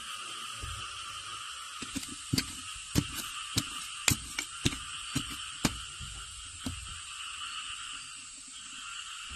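A metal rod jabbed repeatedly into packed clay in a hole, giving about ten sharp knocks over some four seconds, over a steady animal chorus.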